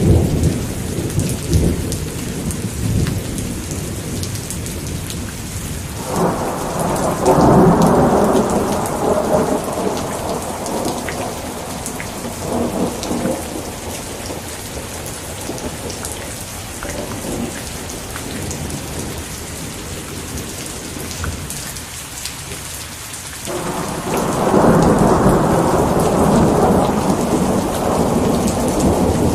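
Steady rain falling, with two long rolls of thunder: one starting suddenly about six seconds in and fading over several seconds, the second starting near the end.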